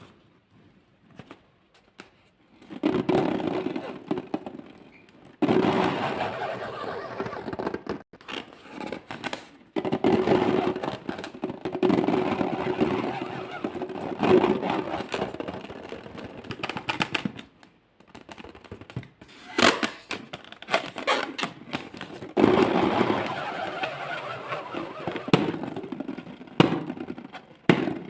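Slime being squeezed and worked by hand, a dense wet crackling and popping in several long stretches with short pauses between.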